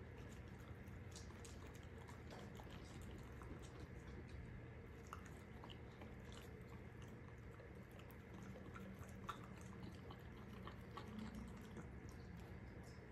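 Corgi chewing and nosing through chopped leafy greens in a plastic bowl: faint, irregular small crunches and clicks.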